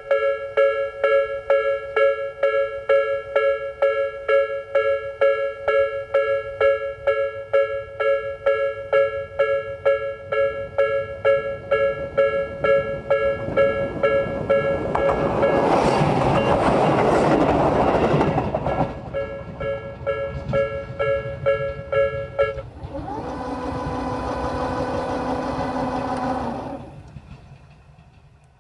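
Japanese level crossing's electronic warning bell (Tobu 'sound B' type) dinging steadily at about two and a half strikes a second. About halfway through, a Tobu 8000-series local train runs through the crossing for about five seconds. The bell stops a few seconds after the train has passed, and a steady hum follows for a few seconds before fading out near the end.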